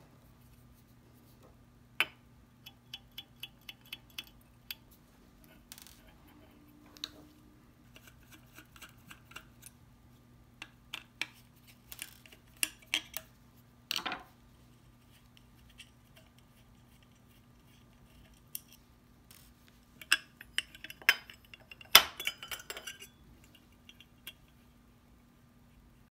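Small metal parts and hand tools clicking and clinking, with brief metallic ringing, in three clusters of quick taps. The loudest come about two-thirds of the way through.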